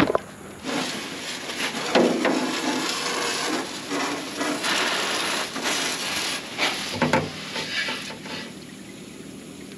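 Water jet from a spray wand hissing and spattering against the metal engine deck and hoses of a John Deere 9500 combine, rising and falling as the spray is swept around, and tailing off near the end.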